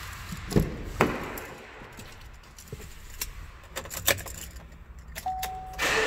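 Clicks and knocks of a pickup truck's driver door being opened and someone climbing into the cab, then a short electronic chime about five seconds in and a steady noise that comes up just before the end.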